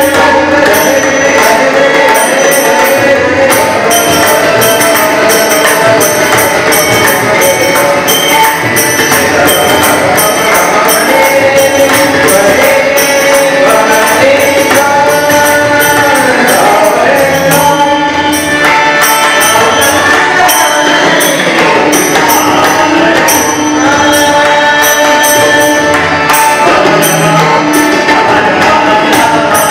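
Live Marathi bhajan in sixteen-beat teentaal: a male lead voice sings over two harmoniums, with pakhawaj and tabla drumming and jingling percussion keeping a steady beat.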